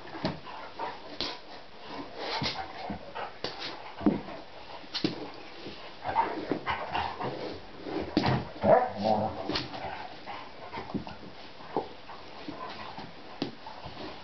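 Two dogs play-wrestling: scuffling, with whimpers and short barks, busiest and loudest from about six to nine and a half seconds in.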